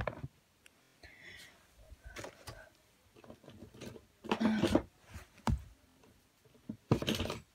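Plastic acrylic paint tubes being handled and set down on a carpet, giving soft knocks and rustles, loudest near the end, with faint speech in between.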